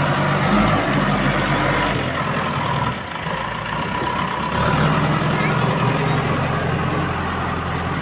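JCB 3DX backhoe loader's diesel engine working steadily as its front bucket pushes into and lifts a load of earth. The engine note drops a little about three seconds in and picks up again near five seconds.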